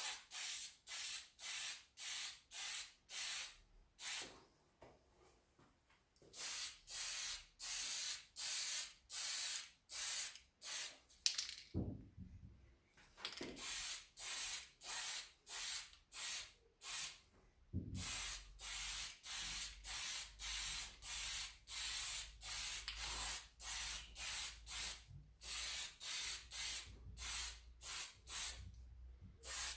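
Aerosol can of spray clear coat hissing in short bursts, about two a second, with a few brief pauses, as a teak wood piece is sealed.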